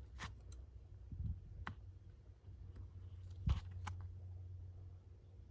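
A few scattered light clicks and taps as heavy monofilament line and small metal fittings are handled while a fishing rig is tied, over a steady low hum.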